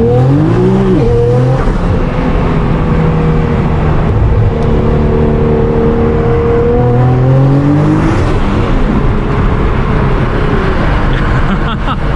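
Twin-turbo 3.8-litre V6 of a heavily modified R35 Nissan GT-R with an HKS GT1000 turbo kit, heard from the cabin pulling hard under full throttle. The engine note climbs, drops at a quick upshift about a second in, holds and rises slowly in the higher gear, then falls away from about eight seconds in as the throttle comes off.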